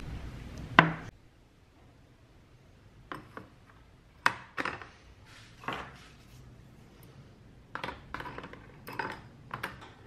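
Water poured from a plastic bottle into a plastic tub stops within the first second, ending in a sharp knock. Then thin metal rods and a metal hand tool knock and clink against the plastic tub about eight times, at uneven intervals.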